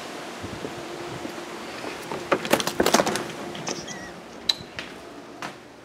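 Front entry door being opened: a quick cluster of clicks and rattles from the handle and latch about two seconds in, then a few single knocks as the door swings and the walker steps through.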